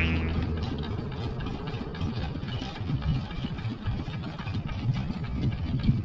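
Engine running at low speed with an uneven low chugging. A loud pitched tone at the very start fades out within the first second.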